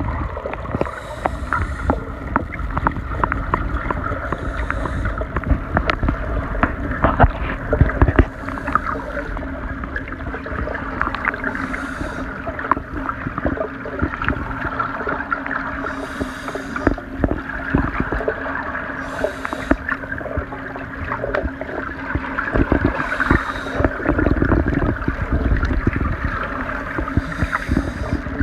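Underwater sound of a scuba diver breathing from a regulator on a 19 cu ft pony tank: a short hissing, bubbling burst every three to four seconds with each breath, over constant crackle and a steady low hum.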